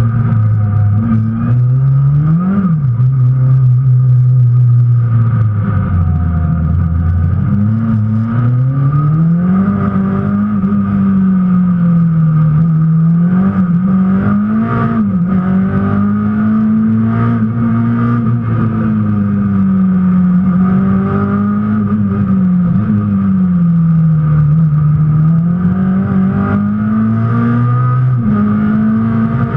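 Citroën AX rally car engine from inside the cabin, revving hard under load, its pitch climbing and dropping again and again through gear changes and lifts, with a quick sharp rise and fall about two and a half seconds in.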